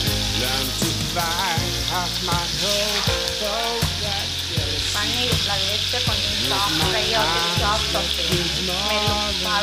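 Paneer cubes sizzling as they fry in hot oil in a kadai, a steady hiss, with a pop song and its bass line playing over it.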